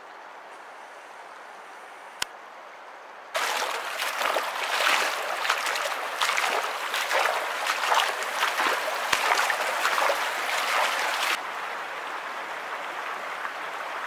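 Sandaled feet wading through a shallow, pebbly creek, splashing irregularly. The splashing starts suddenly about three seconds in and stops a few seconds before the end, leaving the steady run of the creek water.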